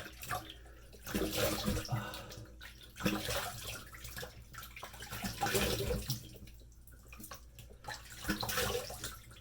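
Straight razor scraping through lathered beard stubble in a series of rasping strokes, in uneven bursts with short pauses between them.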